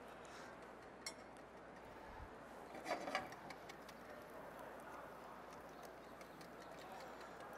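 Faint background noise with a few light clicks and clinks of metal kitchen utensils against pans and a bowl, one about a second in and a short cluster around three seconds in.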